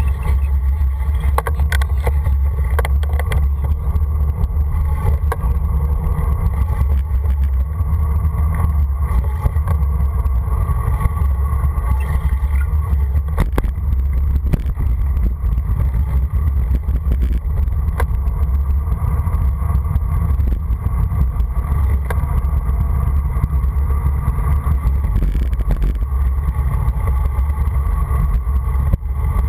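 Wind buffeting the microphone of a bicycle-mounted camera on a fast downhill ride, a steady loud low rumble mixed with tyre noise on asphalt. A few short knocks from bumps in the road come through it.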